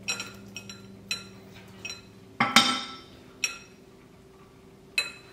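A metal spoon clinking and scraping against a nonstick frying pan and a glass mixing bowl as cooked shrimp are tipped from the pan into batter. There are about half a dozen sharp clinks and taps, the loudest about two and a half seconds in.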